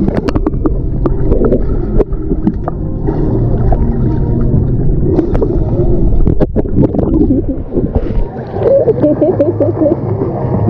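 Pool water sloshing and splashing close around the microphone, a loud rumbling churn with many short splashes. Muffled voices come in near the end.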